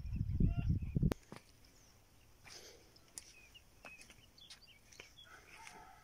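Wind buffeting the microphone, with birds chirping over it, stopping abruptly about a second in; after that, quieter scattered bird chirps and a few faint clicks.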